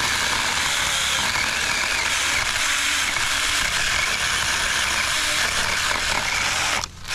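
Saker mini battery-powered chainsaw running steadily while cutting branches, an even high whirring of the chain. It cuts out briefly near the end, then starts again.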